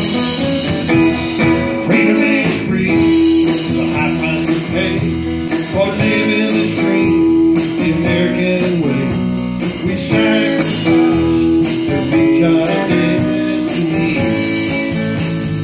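Live country band playing an instrumental break between verses: electric guitars over drums, a lead line of held notes that bend in places, and steady cymbal strokes.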